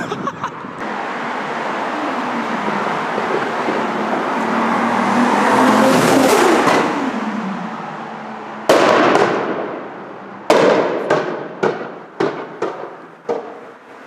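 Tuned Nissan Skyline R34 GT-R's twin-turbo straight-six accelerating hard toward and past, rising to a peak about six seconds in and then falling away. Near the end comes a string of sharp exhaust bangs and pops, the backfires that shoot flames from its exhaust.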